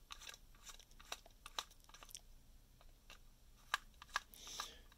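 Faint, scattered clicks and ticks of a small screwdriver turning out the tiny screws that hold the motor wires on a circuit board in a plastic chassis, with two sharper clicks near the end.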